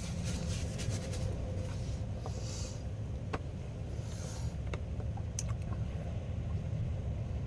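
A steady low rumble, with light rustling and a few small clicks as a paper napkin and a drinks can are handled.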